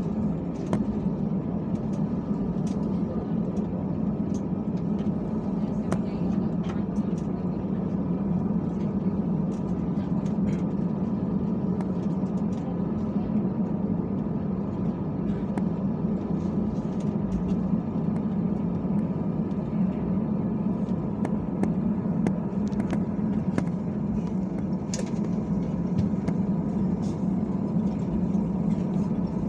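Steady cabin hum of an Airbus A320 on the ground after landing: engine and air-system drone centred low, with scattered small clicks and faint voices.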